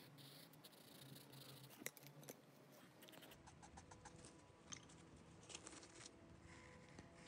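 Faint scratching of a pencil on paper, with a few light ticks, barely above near silence.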